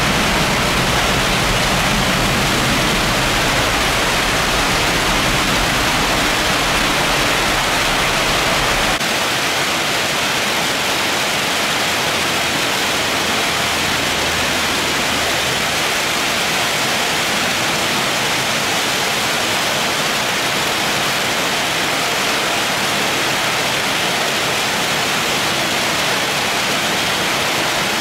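Very heavy rain pouring down, a loud steady hiss. For the first nine seconds a low jet-engine rumble runs under it, then drops away abruptly, leaving only the rain.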